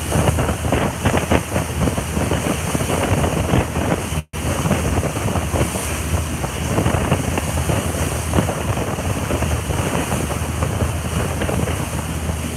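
Dive boat under way at speed: a steady low engine drone under the rush of churning wake water, with wind buffeting the microphone. The audio cuts out for an instant a little over four seconds in.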